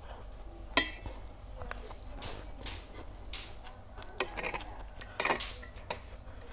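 Metal utensils clinking and scraping against a stainless steel tray while scooping up rice vermicelli, with a sharp clink about a second in and several more after, mixed with the slurping and chewing of the noodles.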